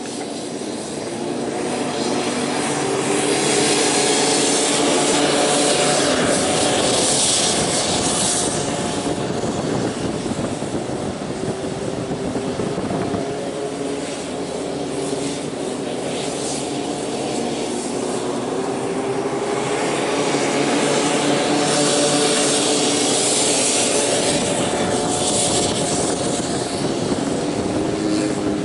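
Racing snowmobile engines at full throttle, their pitch rising and falling as the sleds circle the track. The sound swells twice as the pack passes close.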